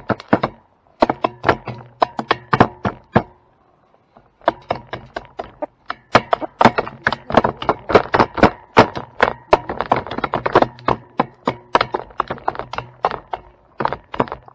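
Chickens pecking at birdseed on a hard surface: quick, irregular sharp taps, many a second, with a short pause about three seconds in.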